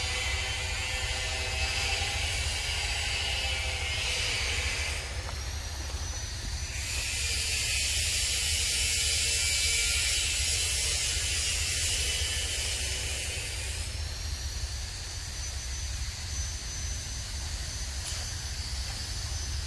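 A chorus of cicadas buzzing steadily at a high pitch, louder in the middle and easing off after about fourteen seconds, over a constant low rumble.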